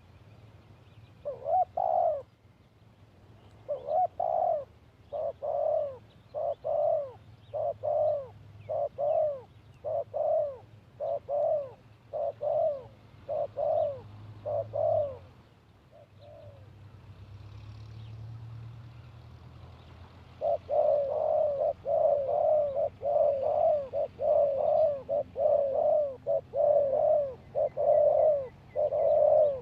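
Spotted dove cooing: a steady run of short, repeated coos, breaking off for a few seconds after about fifteen seconds, then resuming faster and overlapping, as if more than one dove is calling.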